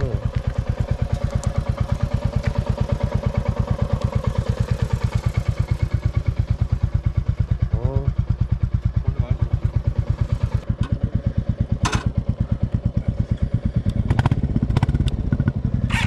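Motorcycle engine idling with a steady, even thumping beat; near the end a heavier low engine rumble rises.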